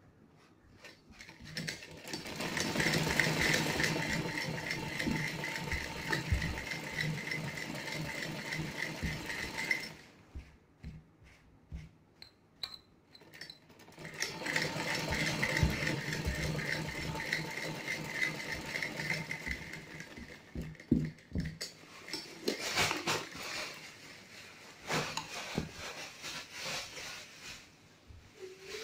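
Sewing machine running as it stitches a long, narrow fabric tie strip. It runs in two stretches, about eight and six seconds long, with a pause between them. Later come a few scattered knocks and cloth rustles.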